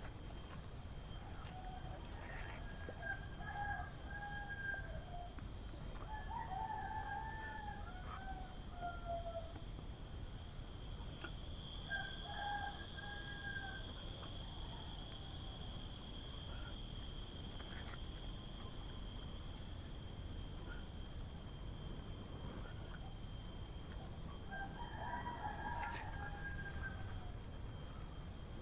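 Roosters crowing faintly four times, over a steady drone of insects and short bursts of rapid insect chirps.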